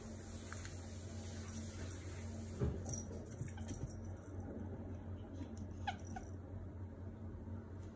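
A cat gives a short meow that falls in pitch about six seconds in, followed at once by a second brief note. Earlier there is a single thump as a pet lands on the wooden floor, chasing a laser dot.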